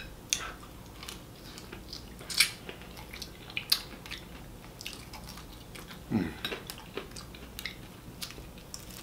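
A person chewing and biting fried chicken: scattered soft crunches and wet mouth clicks, with a brief low murmur about six seconds in.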